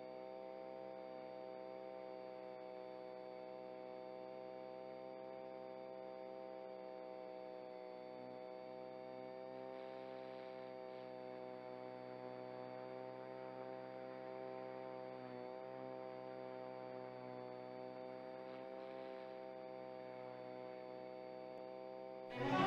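FW200 micro RC helicopter's direct-drive motor and rotor humming steadily in flight, heard from a camera mounted on the helicopter; the pitch dips briefly once about two-thirds through. Music starts right at the end.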